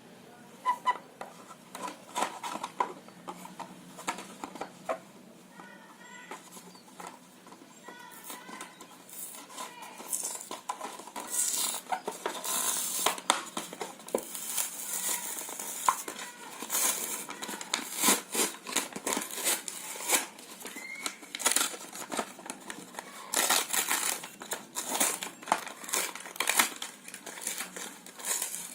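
Toy packaging being handled and opened: plastic and cardboard crinkling and crackling, with irregular clicks and knocks.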